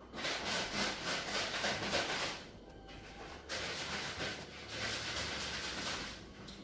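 A wet string mop swishing across a polished tile floor in two long strokes: one of about two seconds, then after a short pause another of nearly three seconds.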